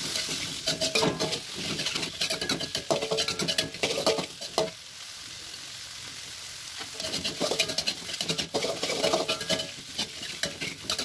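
Metal spatula scraping and tossing a mashed tofu and vegetable mixture around a metal wok, with oil sizzling under it. The scraping comes in two busy bouts, easing to a quieter sizzle for a couple of seconds in the middle.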